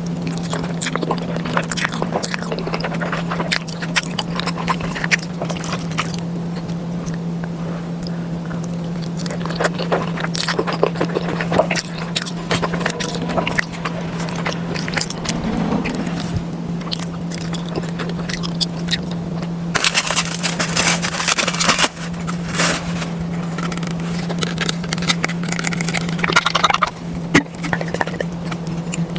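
Close-up eating sounds of cheesy macaroni: wet chewing and a metal fork scraping and clicking against an aluminium foil tray, with a dense spell of scraping about two-thirds of the way through. A steady low hum runs underneath.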